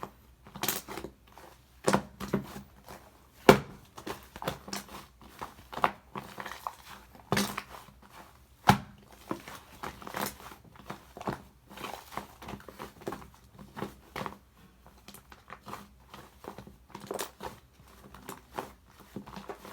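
Fluffy shaving-foam slime being pressed and squeezed by hand, giving a run of irregular soft squishes and crackling pops, a few of them louder.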